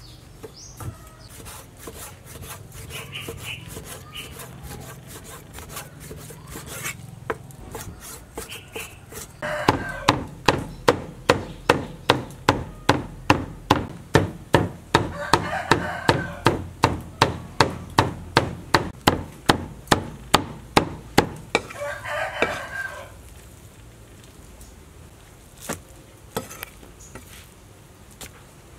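Cleaver chopping raw pork into mince on a thick wooden chopping board. Light, uneven knocks at first, then from about ten seconds in a steady run of hard strikes, about three a second, for some thirteen seconds, and a few single knocks near the end.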